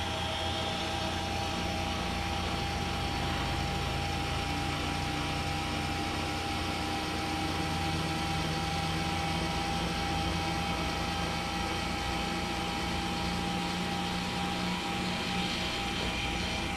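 Motor of a ceiling-mounted drop-down projection screen running steadily as the screen lowers: an even hum with a steady higher whine over it.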